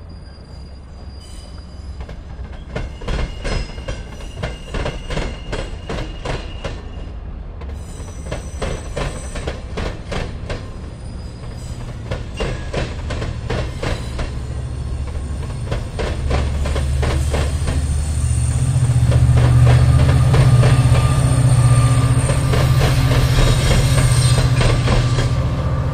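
Diesel-pushed passenger train passing slowly: steel wheels clack rapidly over the diamond crossing and rail joints, with thin wheel squeal. From about two-thirds through, the low drone of the EMD F59PH locomotive pushing at the rear grows loud as it passes.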